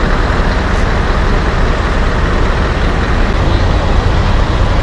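Steady low rumble of diesel truck engines running, with no single engine standing out.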